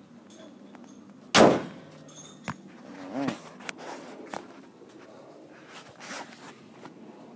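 A car's hood dropped and slammed shut with one loud clang about a second and a half in, followed by a few lighter clicks and knocks.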